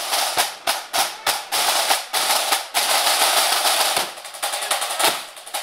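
Several marching-band snare drums played together: a few sharp separate strokes, then dense sustained rolls, getting quieter about four seconds in.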